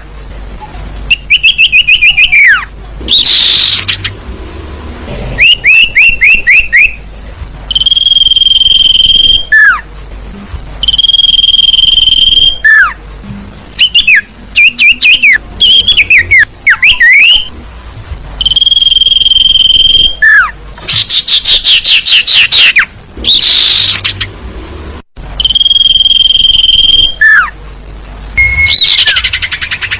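Sirtu bird lure-call recording: loud, clear whistled notes held for about a second each, alternating with fast runs of sharply falling chirps. It is a female's call, used to draw in males.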